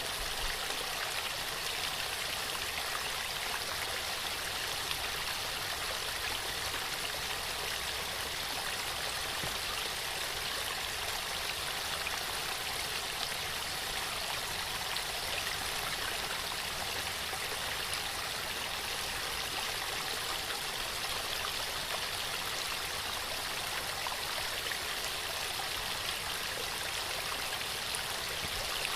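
Waterfall: a steady, unbroken rush of falling, splashing water.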